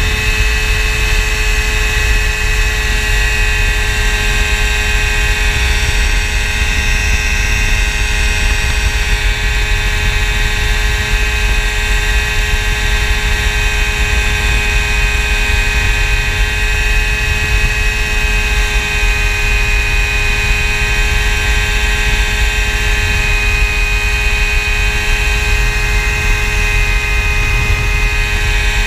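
Phantom X1 ultralight aircraft's engine and propeller running steadily in level flight, heard from the cockpit.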